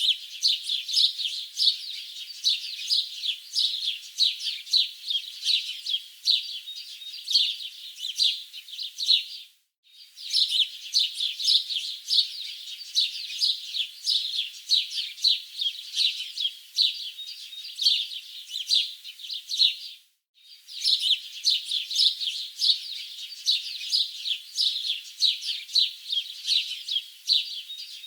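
Many birds chirping in quick, overlapping short calls, all high-pitched with nothing deep beneath them. The chirping cuts out briefly about ten seconds in and again about twenty seconds in, then resumes, as a looped recording does.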